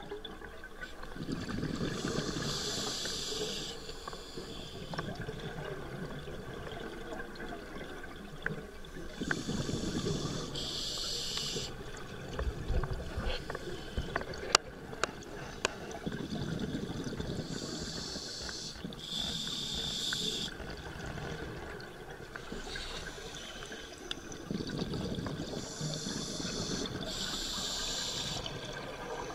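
Scuba diver breathing through a regulator underwater: hissing inhalations and bubbling exhalations, four breaths about seven to eight seconds apart. A few sharp clicks come midway through.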